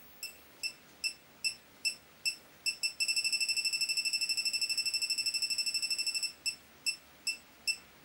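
Elitech WJL-6000S refrigerant leak detector beeping steadily at about two beeps a second. About three seconds in, it switches to a rapid-fire alarm of beeps for about three seconds, the sign that it has sensed refrigerant gas at the fitting, then falls back to the slow beep.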